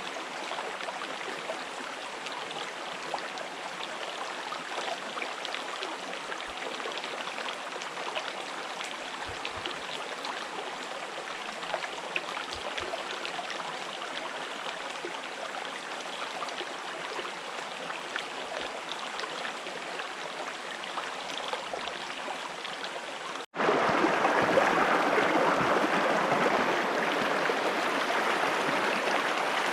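River water flowing steadily. About 23 seconds in it cuts abruptly to a louder rush of water.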